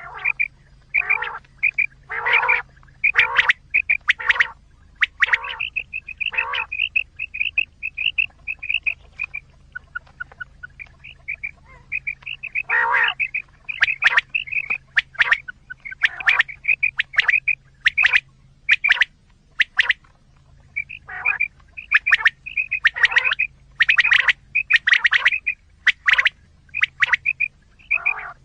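Quail calls used as a hunting lure: runs of short, rapid, repeated calls with some louder, fuller notes among them, pausing briefly about a third of the way in.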